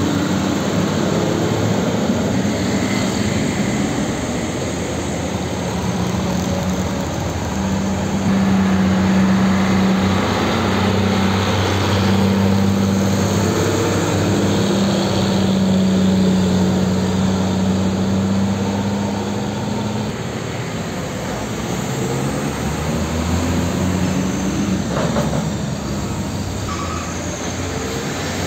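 Heavy diesel container tractor-trailers passing at road speed, their engines giving a steady low drone over tyre and road noise. The drone eases off about two-thirds of the way through as one truck moves away, and the traffic noise goes on.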